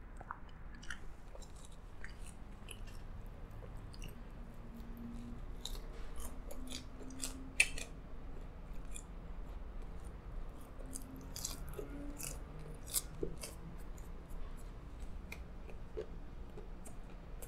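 Close-up chewing of a crunchy piece of breaded chicken: irregular crisp crunches and mouth clicks, with a couple of louder crunches partway through.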